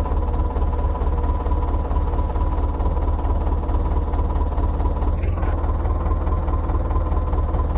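Heavy diesel engine running steadily, with an even, fast firing pulse and a deep rumble. A brief higher-pitched sound cuts in about five seconds in.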